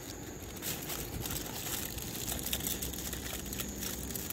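Aluminium foil crinkling in irregular rustles as hands fold and crimp it closed around a fish parcel.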